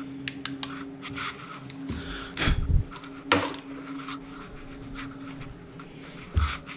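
Handling noises: scattered light clicks and rubbing, with dull knocks about two and a half seconds in, three and a half seconds in and near the end, over a faint steady low hum.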